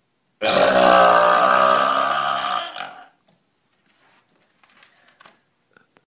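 A man's single long, loud burp, starting about half a second in and lasting about two and a half seconds before trailing off.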